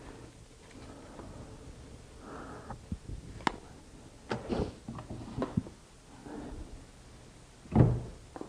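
Boards being handled: scattered light knocks and scuffs of wood, with a heavier thump near the end. No machine is running.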